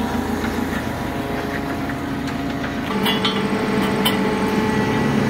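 Forklift engine running steadily, with a few sharp metal clanks about three and four seconds in as the steel truck frame is set down onto jack stands.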